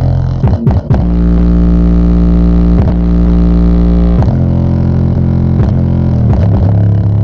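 Bass-boosted music played loud through a homemade speaker's woofer, its cone making long strokes. Deep sustained bass notes shift pitch every second or few, with a brief stutter about half a second in.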